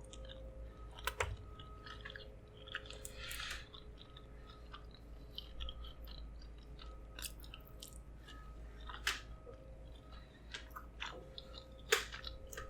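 Faint close-miked chewing and biting of pizza, with soft mouth sounds and a few sharper clicks and crunches.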